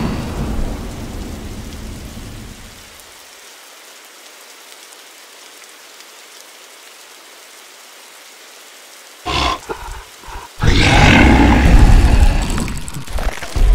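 Cinematic sound effects: a deep rumble fades out over the first three seconds, leaving a steady faint hiss of rain. About nine seconds in come sudden short bursts of noise, then a loud sweeping whoosh lasting a couple of seconds.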